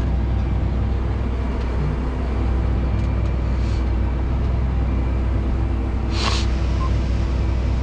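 Tractor engine running steadily under the grain cart's load, a low drone heard from inside the cab, with a brief hiss about six seconds in.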